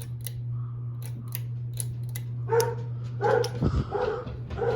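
A dog barking about four short times, starting about two and a half seconds in, over a steady low hum and scattered light ticks.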